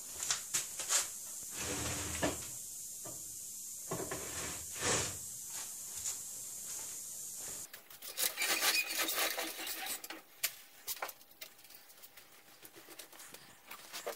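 Barrel reamer being worked through a rifle barrel's bore by hand: metal scraping and clicking, with a few dull knocks from the rod and wooden bench. From about eight seconds in the clicks turn rapid and dense as the reaming goes on.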